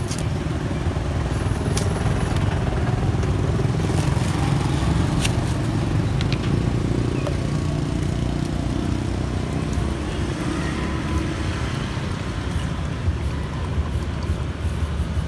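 Steady low rumble of street motor traffic, with a few sharp knocks in the first five seconds as a cleaver chops into a green coconut.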